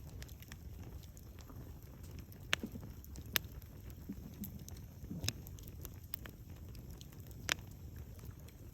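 Wood campfire burning: a low steady rumble with sharp crackling pops from the burning wood, four of them standing out.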